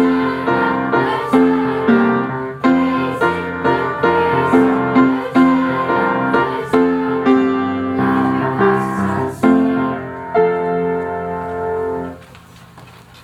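Piano music, a steady run of struck notes that stops about twelve seconds in, leaving faint room noise.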